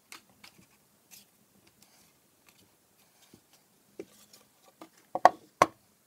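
Wooden enclosure parts being handled and fitted together: scattered light taps and clicks, then three sharp wooden knocks in the last second as the walnut box is set down.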